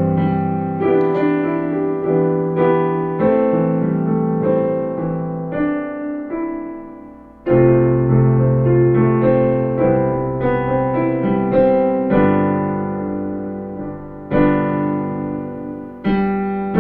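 Piano playing full two-handed chords with the melody note on top, with small melodic fills between the chords. The chords are struck about once a second, and a fresh, louder chord comes in about halfway through.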